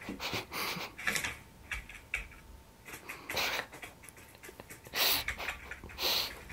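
Computer keyboard typing: a scatter of quick light key clicks, broken by three short breathy hissing bursts in the second half.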